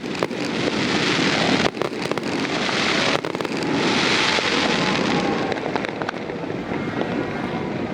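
Aerial fireworks going off in rapid succession: a dense stream of sharp pops and crackles over a continuous rushing noise that swells twice, about a second in and again around four seconds in.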